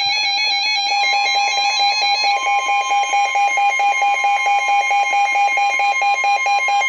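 Emergency Alert System attention signal: a loud, harsh electronic alarm tone that pulses rapidly, with a second, slightly higher tone joining about a second in. It is the alert tone that announces a warning message.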